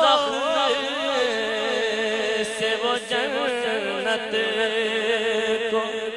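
Male naat reciter singing, with quick wavering ornaments on the opening notes that settle into one long held note.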